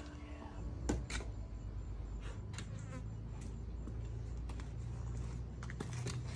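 Cut wooden boards knocking together a few times as they are picked up, carried and set down, the sharpest knock about a second in, over a steady low buzz.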